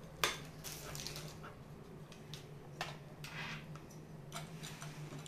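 Scattered light clicks and rustles of cables and connectors being handled and plugged into a small video encoder, over a low steady hum.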